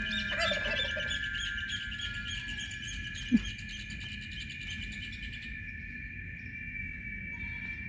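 Birds chirping in quick repeated notes through the first five seconds or so, over a steady high-pitched drone. A single short, loud sound with a falling pitch comes about three seconds in.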